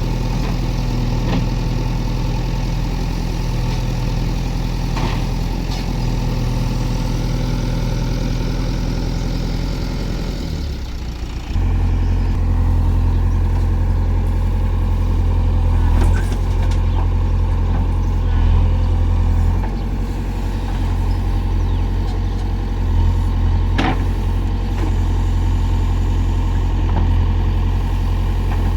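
Diesel engine of a JCB backhoe loader running steadily. About eleven seconds in it dips briefly, then comes back deeper and louder, with a few faint knocks here and there.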